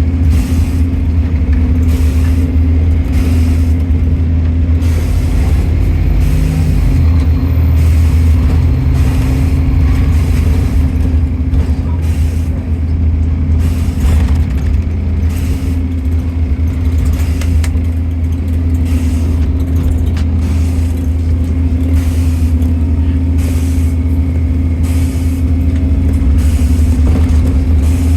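Stagecoach London bus 36651 under way, heard from on board: a steady low engine drone with repeated short rattles and clicks about once or twice a second.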